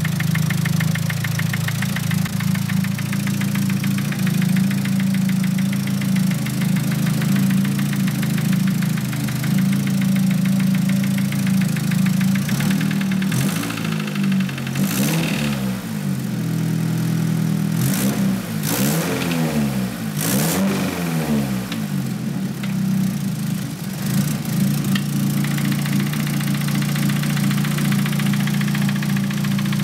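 Nissan SR20DET turbocharged four-cylinder idling with a fast knocking from the cylinder head, revved up and down several times around the middle before settling back to idle. The knock is one the owner cannot trace: freshly bled lifters, a second set of cams and new rocker arms have not cured it.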